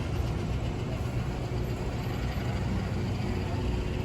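Heavy rain pouring steadily in high wind, the wind rumbling on the microphone.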